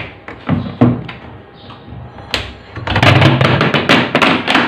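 Snap-on plastic lid being worked off a white plastic storage bucket: a few scattered clicks, then a dense run of loud plastic clicks and scrapes from about three seconds in as the lid comes free.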